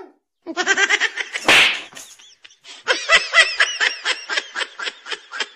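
Laughter in rapid pulses, about five a second, in two spells, with a loud noisy burst about one and a half seconds in.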